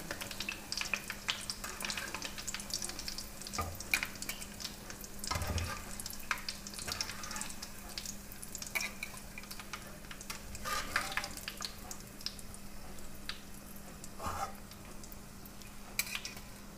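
Coated croquette balls shallow-frying in hot oil with a steady sizzle. Irregular clinks and scrapes come from a metal slotted spatula against the metal pan and a perforated steel strainer as the finished, lightly browned balls are lifted out one by one.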